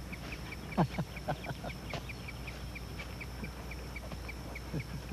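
Farm ambience: a steady high insect chirp repeating about four times a second, with a few short falling calls from ducks quacking about a second in and again near the end.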